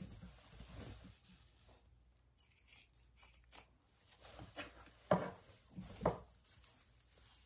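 Scissors snipping through the corners of a sewn, layered casserole carrier (cotton, batting and insulated lining), clipping the corners before it is turned right side out. There are several separate sharp snips, the loudest about five and six seconds in, with fabric rustling between them.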